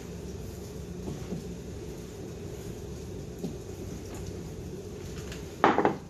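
Steady rain on the garage roof, with a low hum underneath and a few faint ticks. A short, loud sound breaks in near the end.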